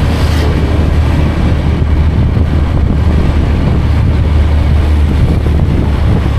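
An engine running steadily with a deep, even hum while travelling, with wind buffeting the microphone.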